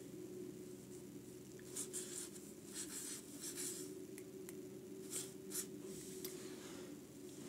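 Pen writing on paper: short scratchy strokes in several bursts, with a sharp little click about six seconds in. A faint steady hum runs underneath.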